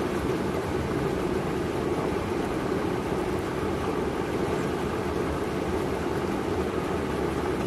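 Steady rushing of water pouring through a spillway, an even roar that stays constant throughout.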